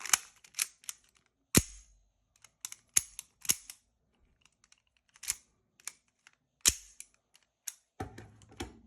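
Airsoft Beretta M92 pistol parts being handled and snapped together: a string of sharp, separate clicks and clacks, about eight loud ones spread unevenly over several seconds, with a softer cluster of handling knocks near the end.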